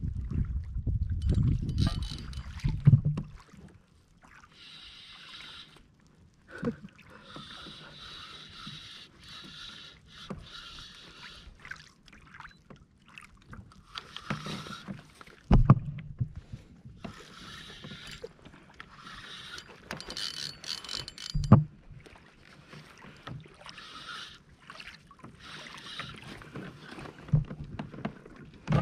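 Fishing reel being wound in short spells while a hooked fish is fought from a plastic kayak, with a few sharp knocks on the hull, the loudest about halfway through and again some six seconds later.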